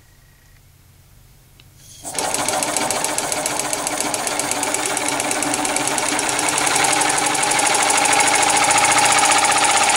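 Cheap tire inflator's small piston air compressor switching on about two seconds in and running loud, with a rapid rhythmic chatter from its motor-driven piston, getting a little louder as it runs.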